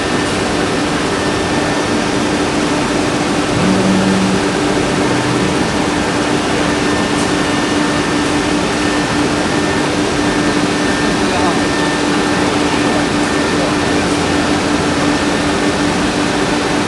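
Jinan Quick K1325AT CNC router running steadily as its spindle carves a wood panel, giving a constant hum with a steady tone, mixed with voices of people talking. A brief low tone sounds about four seconds in.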